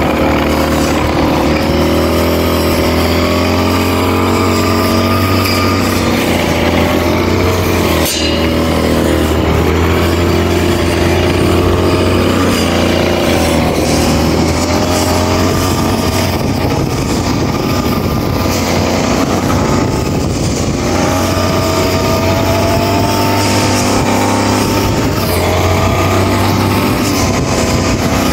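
Handheld two-stroke brush cutter (kusakari-ki) running at high revs while cutting grass, its pitch wavering slightly as it works. There is one sharp tick about eight seconds in.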